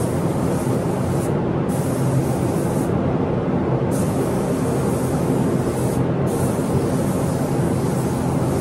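Compressed-air paint spray gun hissing as it sprays the truck's bed panel. The hiss cuts out briefly three times as the trigger is released between passes, over a steady low rumble of running air equipment.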